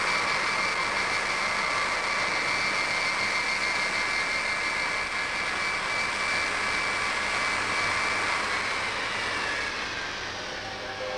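Boeing 707 jet engines running at taxi power as the airliner rolls past, a steady rushing noise with a high whine. Near the end the whine sinks a little in pitch and fades.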